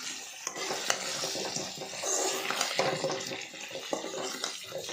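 Chicken heads sizzling in hot oil in an aluminium kadhai, with a metal spatula scraping and clinking against the pan as they are stirred.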